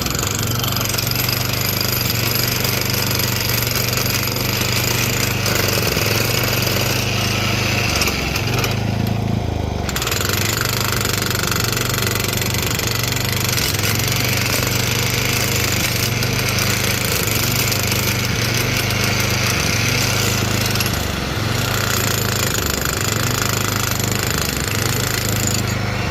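Jackhammer chipping concrete, hammering rapidly and continuously with a brief pause about nine seconds in, over a low steady hum.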